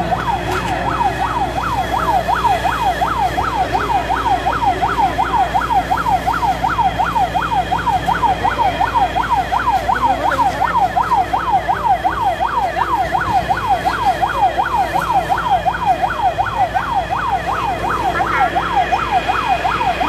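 Fire truck siren on a fast yelp, its pitch sweeping up and down about three times a second without a break, over a steady low rumble.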